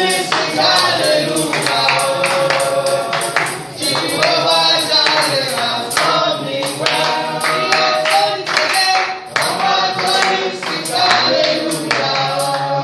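A congregation singing a praise song together, with a tambourine shaken and struck in a steady beat throughout.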